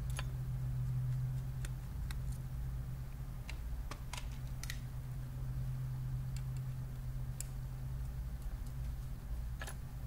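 Light, irregular clicks and ticks of a small screwdriver on a laptop's tiny motherboard screws and metal chassis as the screws are backed out, over a steady low hum.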